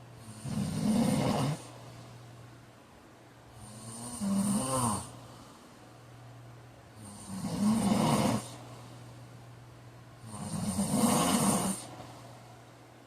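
A heavy man snoring in sleep: four loud snores, each lasting a second or so, coming about every three seconds in a regular rhythm, with a faint steady hum between them.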